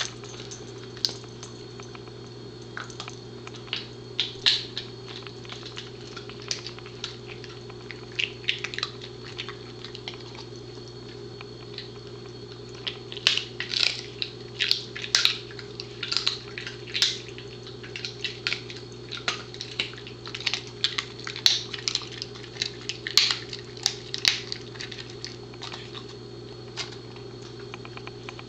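Pembroke Welsh Corgi chewing a dried buffalo trachea strip: irregular crunching cracks that come thick and fast from about 13 seconds in, over a steady low hum.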